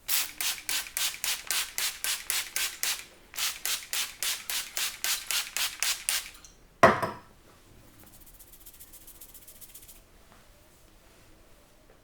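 Rapid rhythmic slapping of a barber's hands in a percussive massage, about five sharp strokes a second in two runs with a brief pause between them. A little past halfway comes one loud, sharp, heavier impact.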